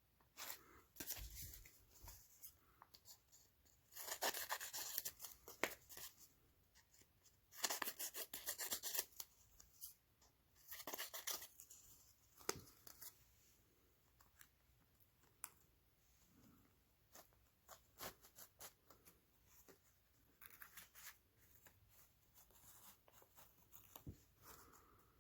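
Carpet being cut by hand: three faint rasping strokes about four, eight and eleven seconds in, with scattered snips and clicks between them.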